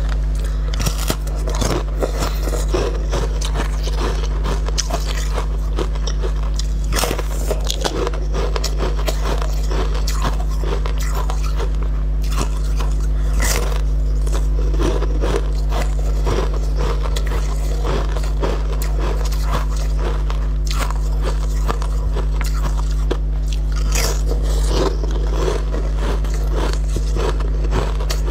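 Close-up biting and chewing of crunchy food: crisp crunches come again and again over a steady low hum.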